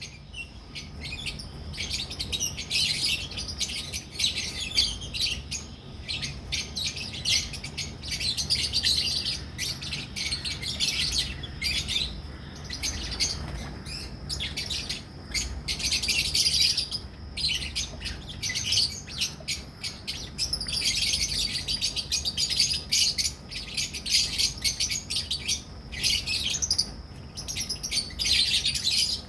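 A colony of lovebirds, albino red-eyed and masked (personata) Agapornis, chirping and chattering continuously in quick, high notes, with a few brief lulls. A faint steady low hum runs underneath.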